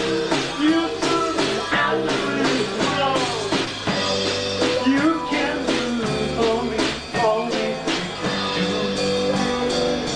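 Live rock band playing: two guitars, bass and drum kit, with a lead line of bending, wavering notes over a steady drum beat.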